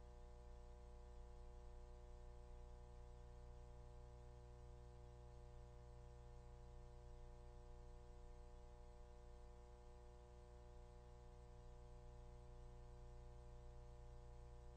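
Near silence with a faint, steady electrical hum made of several stacked tones, strongest in the low bass.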